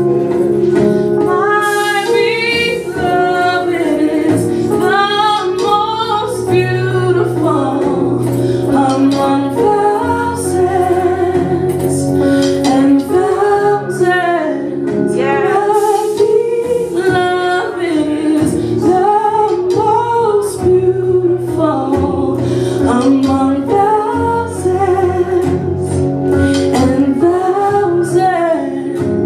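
A woman singing a gospel worship song into a microphone, her voice gliding and wavering through long phrases over held organ chords.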